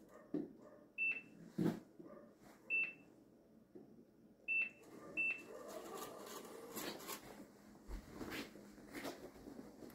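Short, high electronic beeps from a Prodim Proliner digital countertop templater, four of them, at about one, three, four and a half and five seconds in, each marking a measured point being recorded. Between them come light knocks, and handling noise grows busier in the second half.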